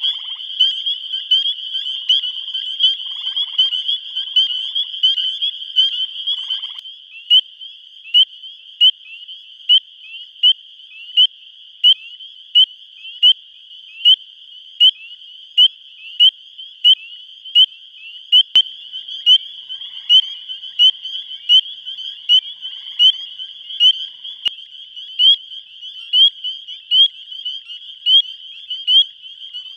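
Spring peepers calling: short, high, rising peeps, one frog's peep standing out loud and repeated a little more than once a second over a chorus of other peepers. The chorus is thick and overlapping for the first several seconds before the single frog's peeps take over.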